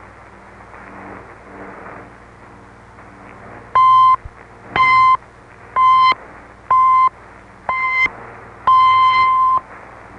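Shortwave broadcast received on a Realistic DX-302: a station's six-pip time signal marking the top of the hour, five short beeps about a second apart and a longer sixth. A few seconds of faint static hiss come before the pips.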